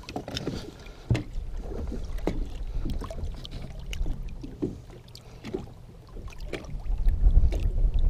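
Lake water sloshing and lapping around a camera held half-submerged at a boat's side, with small splashes and knocks. A low rumble of water against the housing swells louder near the end.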